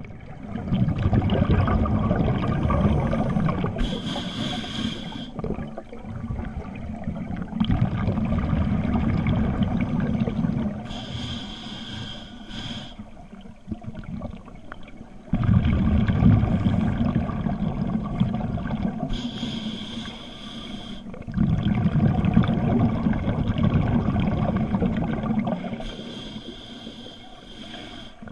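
Scuba diver breathing through a regulator underwater, about four slow breaths. Each breath is a short hiss on the inhale, then a long low burble of exhaled bubbles.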